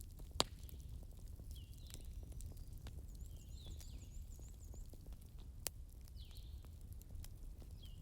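Wood fire crackling over a low steady rumble, with a sharp pop about half a second in and another just before six seconds. High chirping calls come and go, including a quick trilled run near the middle.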